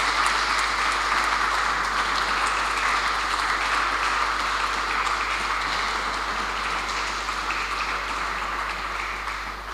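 A small seated audience applauding, the clapping slowly thinning and dying away near the end.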